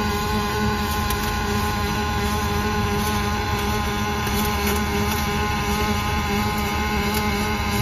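Robotic arc welding on steel plate: the welding arc burns continuously, a steady buzzing hiss over a steady hum, with no breaks.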